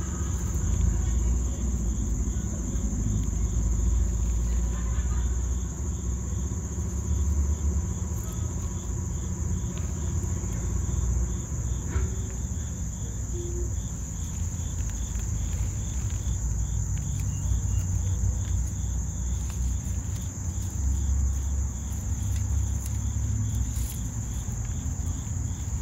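Insects chirring steadily outdoors: a continuous high buzz with a faint, evenly repeating chirp beneath it, over a low uneven rumble.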